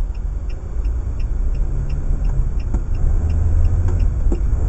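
Car's engine and tyres rumbling as heard inside the cabin, as the car pulls away slowly in traffic. Faint regular ticking comes about three times a second.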